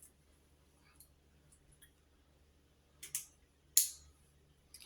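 Plastic Lego pieces clicking as they are handled and pressed together: a few faint ticks, then a quick pair of sharp clicks about three seconds in and a louder single click just before four seconds.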